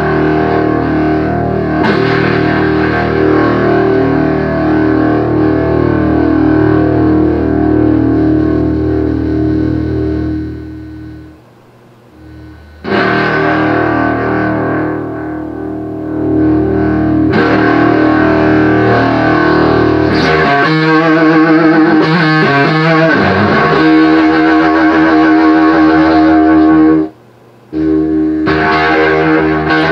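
Electric guitar played through a breadboarded germanium-transistor fuzz (a Fuzz Face/Rangemaster hybrid): distorted chords that ring and sustain. The sound cuts out briefly about twelve seconds in and again near the end, and its low end thins out about two-thirds of the way through as the circuit's knobs are adjusted.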